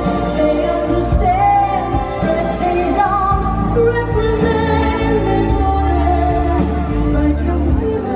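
Music: a song with a singing voice over sustained accompaniment and a steady bass line.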